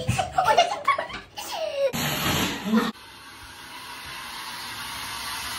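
Laughter, then after an abrupt cut a steady hiss of a shower running, slowly growing louder.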